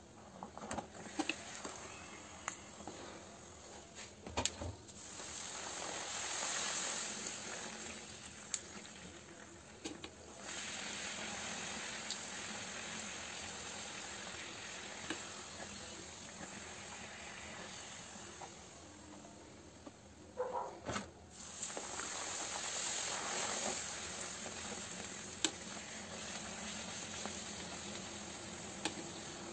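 Puris deep-frying in hot oil in a small steel kadai: a steady sizzle that swells and eases, with light clinks of a steel spoon against the pan.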